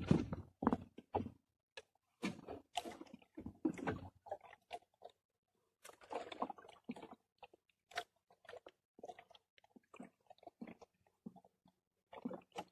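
Fishing handline being hauled in hand over hand, the line rubbing and scraping against the hands and the boat's edge in irregular short bursts with brief pauses.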